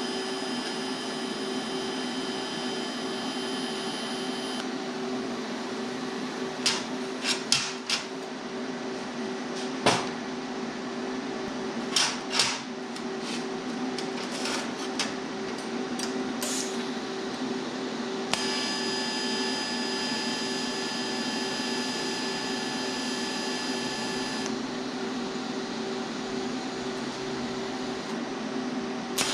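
Steady drone of a running shop machine with a high whine that comes and goes, and a handful of sharp knocks and clanks scattered through the middle.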